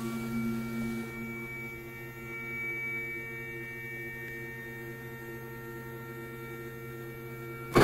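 MakerBot Replicator 2 3D printer's Z-axis stepper motor running, a steady hum of several tones, as it drives the build platform up the lead screw.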